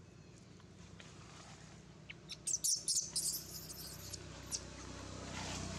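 Short, high-pitched chirping calls cluster about two and a half seconds in, followed by a quick trill and one last chirp. Near the end, a rustling of dry leaves underfoot rises.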